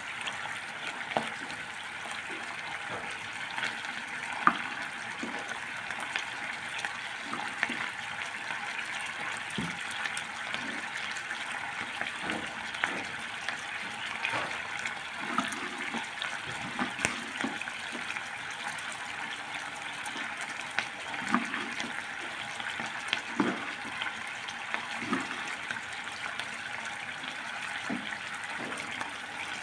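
Steady hiss of heavy rain, with scattered short knocks of a knife cutting on a wooden cutting board.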